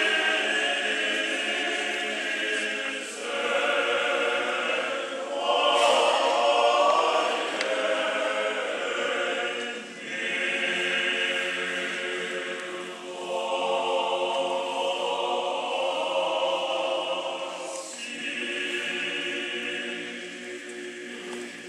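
Orthodox church choir singing unaccompanied liturgical chant in several sustained phrases with short breaks between them; the last phrase fades out near the end.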